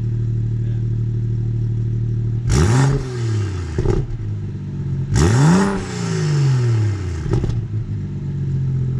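BMW 235i's turbocharged inline-six idling, fitted with a fresh catless downpipe. It is blipped twice, about two and a half seconds in and again about five seconds in, each rev climbing quickly and then dropping back slowly to a steady idle.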